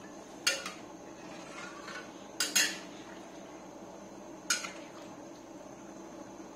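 Metal ladle clinking against a wok as the fish broth is stirred: four sharp clinks, one about half a second in, a quick pair near two and a half seconds, and one at four and a half seconds, over a faint steady hum.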